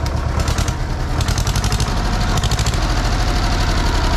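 Small agricultural tractor engine running steadily with a fast, even beat, a harsher rattle riding on it for a couple of seconds in the middle.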